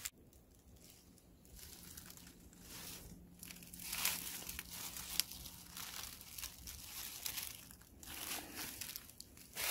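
Footsteps crunching through dry fallen leaves, an irregular run of crackling steps at a walking pace.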